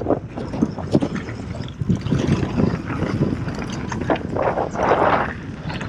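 Full-suspension mountain bike descending a gravelly dirt trail: tyres rolling over the dirt while the chain and frame rattle and knock over bumps. A louder rush swells about four and a half seconds in.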